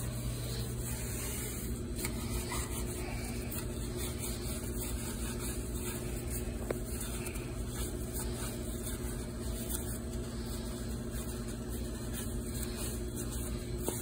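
Steady low mechanical hum with several steady tones, from kitchen equipment such as a ventilation fan or refrigeration unit running, under the faint rubbing of a scrub pad on stainless steel.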